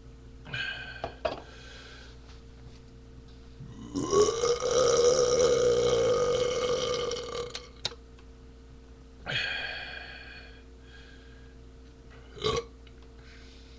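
A man's long, loud burp, lasting nearly four seconds and starting about four seconds in, rising in pitch at its start and then held. Shorter, quieter sounds come before and after it, and there is a sharp click near the end.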